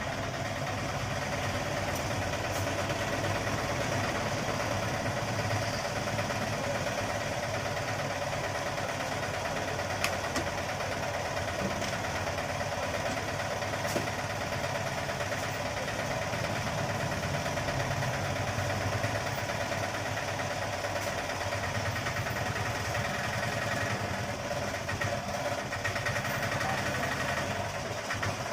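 A motor running steadily without let-up, with a couple of sharp clicks partway through.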